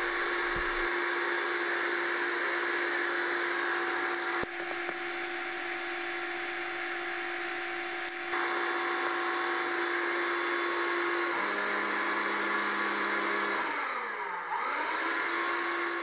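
Hoover Linx 18-volt cordless stick vacuum running with a steady motor whine. There is a click and its sound changes about four seconds in, then changes back about four seconds later. Near the end the pitch drops, dips and recovers as the beater-bar brush is switched, the brush drawing more current from the battery.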